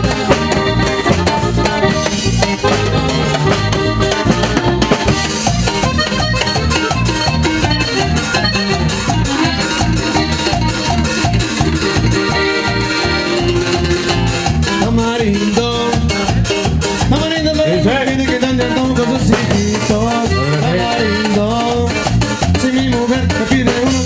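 Live norteño band playing an instrumental passage with a steady dance beat: a Hohner button accordion carries the melody over a twelve-string bajo sexto, electric bass and drum kit.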